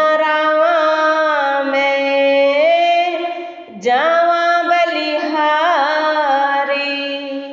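A woman singing a Punjabi devotional shabad in two long held phrases, with slow bends and small ornaments in the notes. There is a short break about halfway through before the second phrase.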